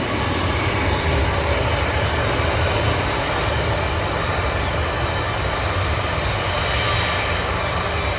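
Boeing 737-800's CFM56 jet engines running, a steady deep rumble with a faint high whine over it.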